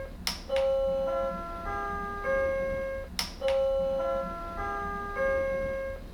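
Commercial electronic chime playing a short melody of sustained bell-like tones. The phrase repeats about every three seconds, and each pass opens with a sharp click.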